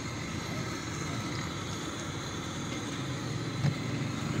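Steady hum of street traffic, with one sharp click a little before the end.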